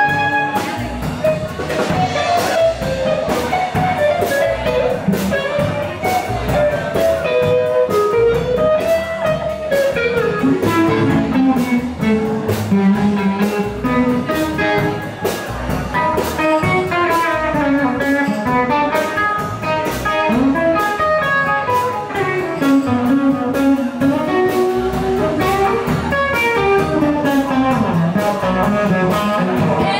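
Live blues band playing an instrumental passage: electric and acoustic guitars over a steady drum-kit beat, with a lead melody line that bends up and down in pitch.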